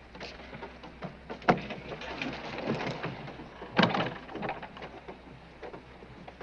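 Footsteps and knocking on the wooden plank deck of a river ferry barge: irregular clatter with two louder knocks, about a second and a half and four seconds in.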